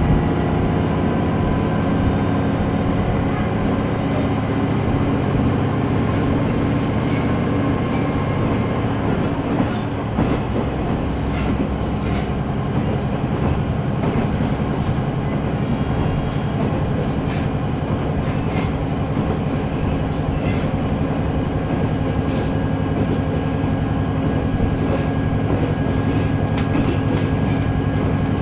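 Onboard running sound of a JR KiHa 110-series diesel railcar at around 80 km/h, heard from inside the passenger cabin. Its direct-injection diesel engine runs steadily under the floor, and the wheels clack now and then over rail joints.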